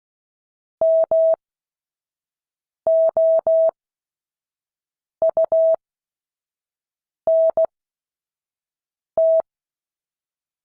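Morse code practice tone, a steady pitch of about 650 Hz keyed slowly in five widely spaced letters of long and short beeps: dah-dah, dah-dah-dah, di-di-dah, dah-dit, dah, spelling M-O-U-N-T.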